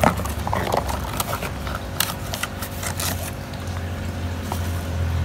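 A cardboard box being opened by hand: a sharp snap at the start, then a run of papery rustles and scrapes of the flaps and packing, over a steady low hum.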